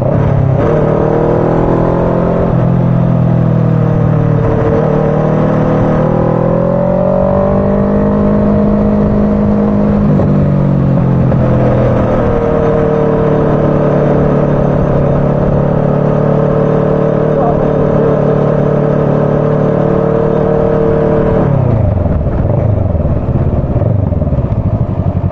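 Motorcycle engine running while under way, its note rising and falling with the throttle. About three-quarters of the way through the note drops away as the bike slows.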